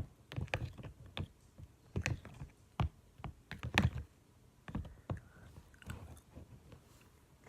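A spoon stirring white Elmer's glue and water in a small container, clicking and scraping against the sides and bottom in an irregular run of light knocks, thinning out near the end.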